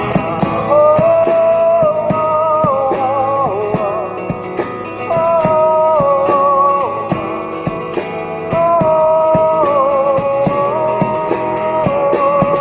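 A live band playing an instrumental passage of a pop-rock song: guitar and drums, with a lead melody of long held notes over them.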